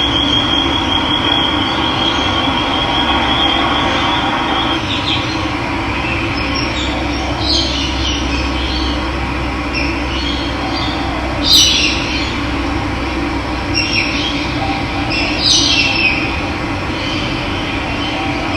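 Running water, a steady rushing noise, with birds calling over it: a rapid trill in the first few seconds, then several short, sharp chirps, the loudest a little past halfway.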